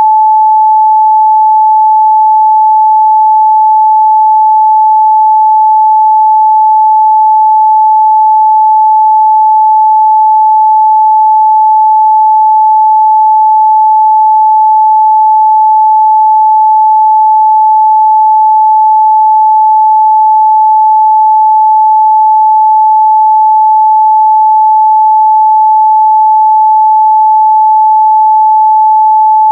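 A pure 867 Hz sine-wave test tone, one steady unwavering pitch held loud and constant.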